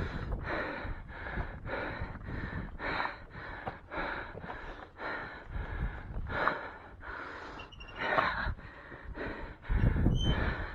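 A hiker's heavy, fast breathing while climbing steep rock, about two breaths a second, from exertion. A low rumble comes in near the end.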